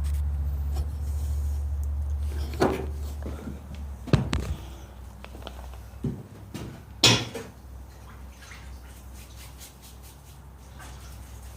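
A few sharp metal knocks and clanks of parts and tools being handled, the loudest about seven seconds in, over a low hum that fades after about four seconds.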